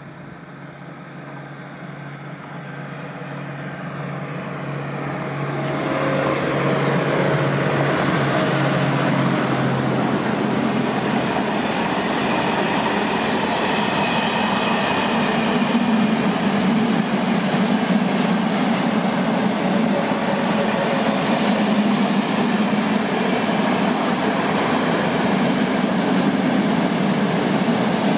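PKP Cargo SM42 diesel shunting locomotive growing louder as it approaches and passes over the first six seconds or so, with a steady low engine drone, followed by the continuous rumble and rolling of a long train of open freight wagons going by.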